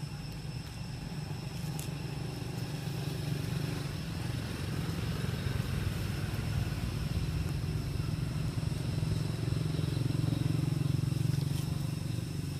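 Steady low rumble like a motor running, swelling a little louder near the end, with faint steady high-pitched tones over it.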